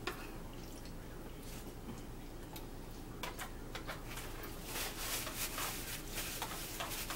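Small mealtime sounds: scattered soft clicks at first, then from about three seconds in a quick run of clicks and rustles from a metal spoon working in a plastic bowl of oatmeal and a paper towel being crumpled in the hands.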